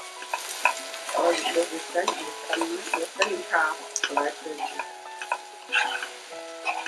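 Sliced onion and carrot sizzling in oil in a non-stick wok while a metal spatula stirs them, scraping and tapping the pan in an irregular run of strokes over a steady sizzle.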